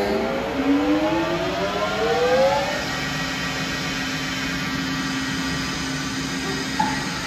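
Camut Maxi 825 surface grinder running: a machine whine rises in pitch for the first few seconds, then settles into a steady hum as the magnetic chuck table traverses under the grinding wheel.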